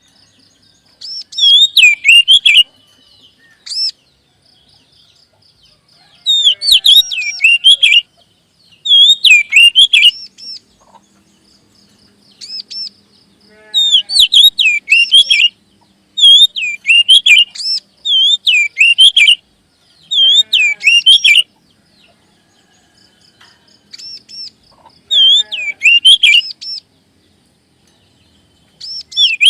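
Oriental magpie-robin (kacer) singing loud phrases of rapidly swooping whistled notes, each a second or two long and repeated every few seconds. Fainter chattering notes fill the gaps between phrases.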